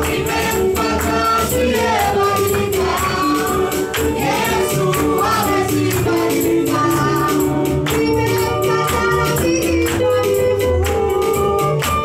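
Swahili gospel praise singing: a woman leads on a microphone with other voices joining, over steady low bass notes and an even, quick tambourine beat.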